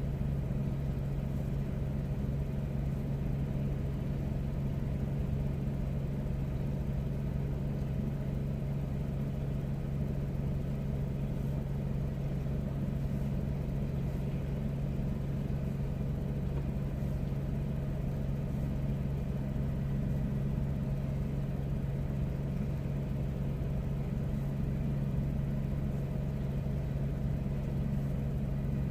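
A steady low engine hum, like a motor idling, with a rumble underneath. It holds one low pitch and does not change.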